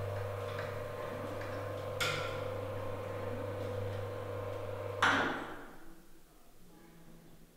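A steady electric hum, with a faint click about two seconds in. About five seconds in a sharp knock with a short ring cuts in, and the hum stops with it.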